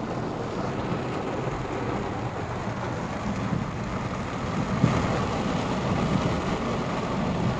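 Heavy rain drumming on a car's roof and windscreen, heard from inside the moving car over the steady rumble of the car on the road. A single brief knock stands out about two-thirds of the way through.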